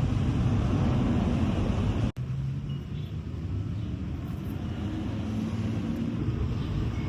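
Vehicle engine running steadily with a low rumble, cut off abruptly for an instant about two seconds in, then carrying on a little quieter.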